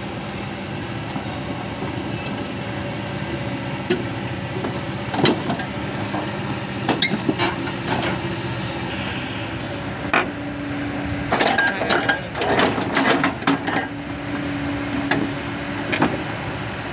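Kobelco SK220 excavator's diesel engine running steadily with its hydraulics working, a higher steady tone coming in about ten seconds in. Irregular sharp metal clanks and knocks of the steel track and links are heard, bunched together in the second half, as the breaker pushes against the track.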